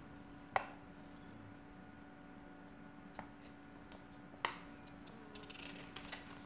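A few soft crackles and ticks as a folded paper user manual is handled and opened, over a faint steady hum.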